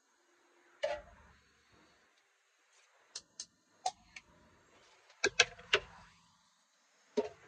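Cooking utensils knocking and clicking against a frying pan and a plate as food is served out: scattered sharp taps, with a cluster of louder knocks about five and a half seconds in.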